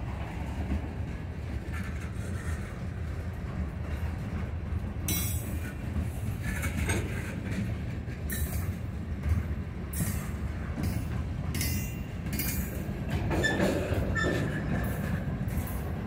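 Freight cars rolling past on steel rails: a steady low rumble of wheels and trucks, with irregular sharp clicks and clanks from the wheels over the rail. A brief faint wheel squeal comes near the end.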